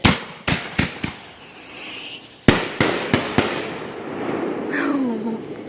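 Backyard consumer fireworks going off: two quick volleys of four sharp bangs each, about a third of a second apart, with crackling in between and after. A high whistling tone sounds briefly after the first volley.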